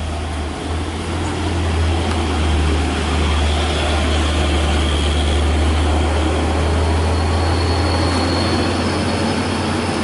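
Heavy truck's diesel engine running hard under load, a deep steady drone that eases slightly near the end.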